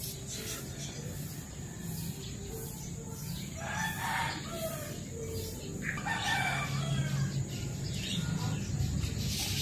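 A rooster crowing twice, each crow about a second long, the first about three and a half seconds in and the second about six seconds in.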